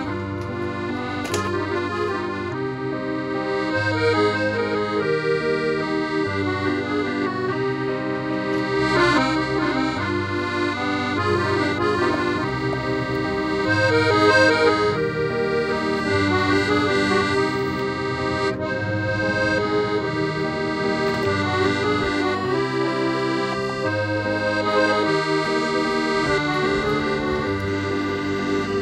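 Accordion music: a melody played over low bass notes that change about once a second.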